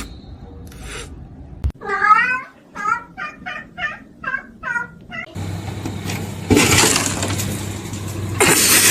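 Cat meowing: one long wavering meow about two seconds in, then a quick run of short meows, about two a second. From about halfway on, a louder noisy rush takes over, swelling twice.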